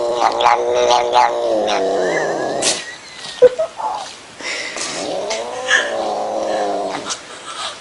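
A domestic cat caterwauling in two long, drawn-out yowls with a pause between them. A brief, sharp sound in that pause is the loudest moment.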